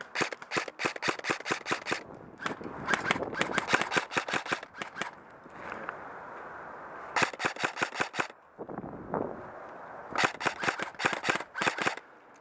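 Airsoft rifle firing four quick strings of shots, about six to eight sharp cracks a second, with short pauses between the strings.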